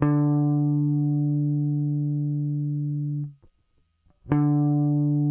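Electric guitar played through a breadboard audio compressor: a single low D note (about 146 Hz) is plucked and holds nearly level for about three seconds before stopping abruptly. The same note is plucked again about a second later and cut off short.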